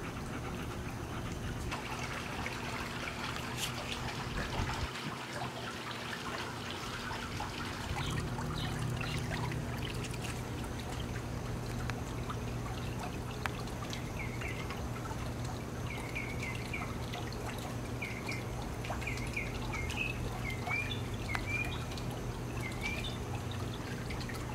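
Steady trickling of water. A low hum joins about eight seconds in, and in the second half short high chirps repeat again and again.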